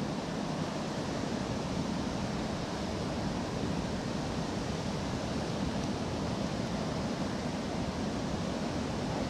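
Water rushing steadily over a low-head dam and churning in the whitewater below it.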